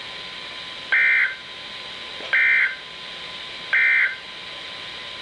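Emergency Alert System end-of-message tones: three short bursts of SAME digital data screech, each under half a second and about one and a half seconds apart, signalling that the alert is over.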